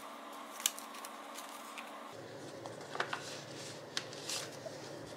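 Cash envelopes and paper banknotes being handled by hand: soft rustling with a few light clicks and crinkles, over a faint steady room hum.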